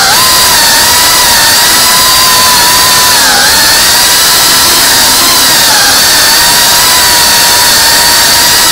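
FPV quadcopter's electric motors and propellers whining loudly at a steady pitch, heard from on board, with brief dips in pitch at the start and about three seconds in as the throttle eases.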